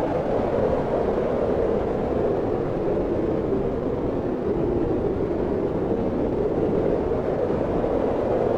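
Wind blowing steadily, a dense rushing noise whose pitch sinks a little midway and rises again near the end.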